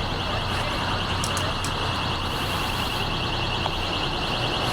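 An electronic alarm sounding steadily: a high-pitched, rapidly pulsing tone over a low steady hum.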